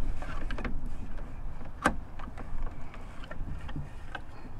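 Clicks and knocks from a small electric trolling motor's plastic-and-metal tilt bracket and shaft as the motor is swung by hand from lying flat to upright on its wooden mount. The sharpest knock comes about two seconds in, over a low steady rumble. The motor itself is not running.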